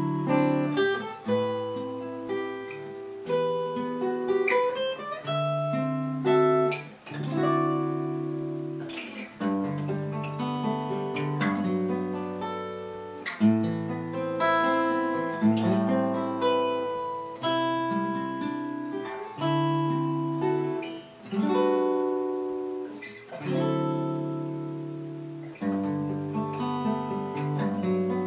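Steel-string acoustic guitar played fingerstyle: a solo piece built entirely on ninth-chord voicings, with chords plucked and left to ring, a new chord or phrase every second or two.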